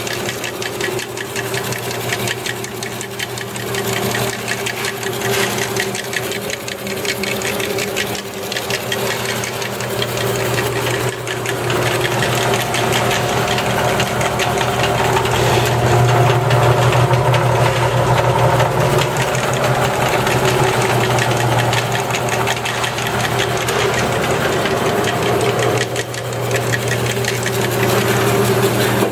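JET 14-inch wood and metal vertical band saw running with no load, its electric motor humming steadily as the blade turns freely; it grows a little louder about halfway through. The machine runs smoothly.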